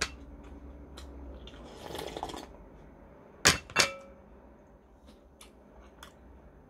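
Eating sounds: small mouth clicks and a short slurp, then a spoon knocking twice against a glass bowl about three and a half seconds in, the second knock ringing briefly.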